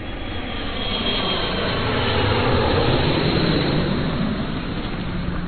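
Vehicle pass-by sound effect: a steady rush of engine and road noise that builds to its loudest about halfway through and eases off toward the end.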